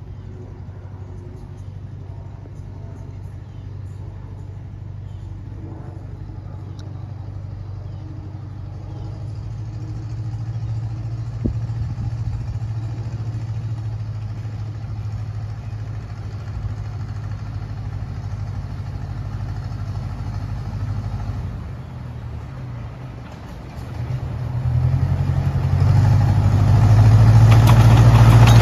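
Engine of a Chance Rides C.P. Huntington miniature zoo-train locomotive running as it approaches with its passenger cars. It is a steady low drone that grows louder, dips briefly, then swells sharply in the last few seconds as the train draws up close.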